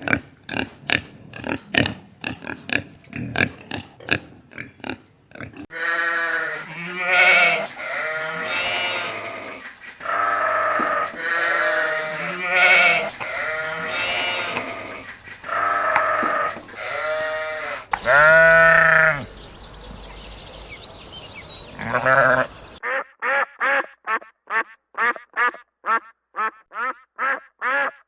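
Farm livestock calling: a quick run of short grunts for the first few seconds, then a string of long bleats, the loudest about two-thirds of the way in. Near the end come rapid, evenly spaced quacks from ducks.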